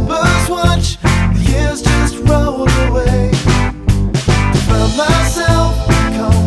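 Background music: a rock song with a steady beat, bass and drums.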